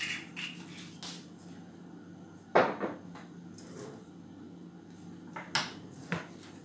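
A few knocks and clatters of kitchen things being handled, the loudest about two and a half seconds in, over a steady low hum.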